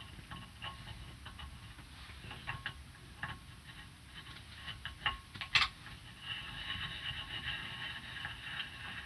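Plastic clutch knob of a telescope mount being screwed by hand into its threaded housing: scattered small clicks and taps, with one sharper click about five and a half seconds in. For the last few seconds a steady soft rasp follows as the knob turns on its freshly oiled thread.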